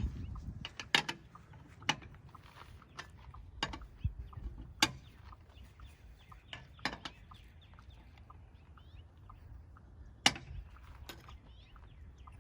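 Lug nut wrench working on a car wheel's lug nuts as they are broken loose: scattered sharp metal clicks and knocks at irregular intervals, the loudest about a second in and about ten seconds in.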